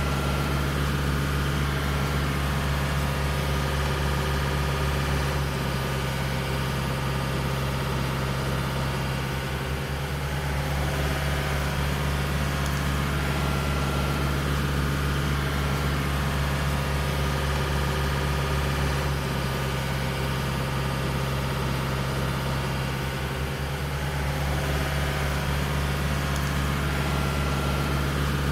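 A towboat's engine running steadily under load while towing another boat on a line, heard as a continuous low engine drone.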